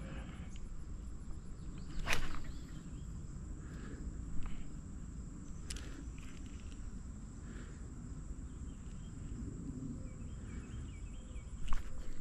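Outdoor ambience: a steady low rumbling noise with a faint steady high tone, broken by a few sharp clicks and knocks, the loudest about two seconds in.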